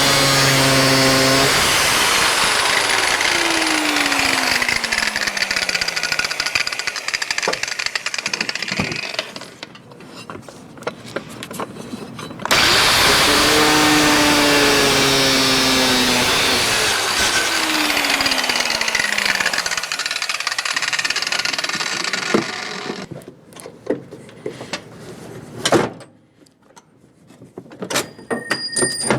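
Power tool cutting out a bolt that was jammed against the edge of a car's radiator fan shroud. It runs in two long bursts of about ten seconds each with a short pause between, its pitch dropping as it winds down, then a few knocks and clinks.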